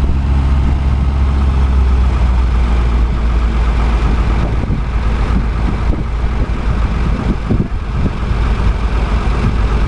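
Ford 4000 and 5000 tractor engines running at a steady idle with a low, even drone, which turns more uneven from about five seconds in, with brief dips in loudness.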